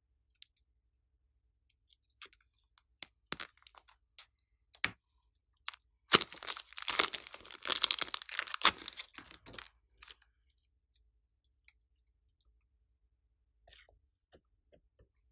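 Scissors snipping the tip of a plastic piping bag, then the thin plastic bag crinkling and tearing as thick slime is squeezed and peeled out of it, a dense crackling stretch in the middle that is the loudest part. A few small clicks follow.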